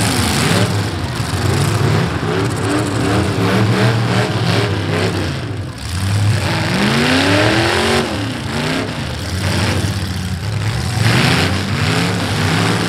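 V8 engines of demolition derby cars revving hard, their pitch climbing and falling back several times as the cars accelerate and push across the dirt arena.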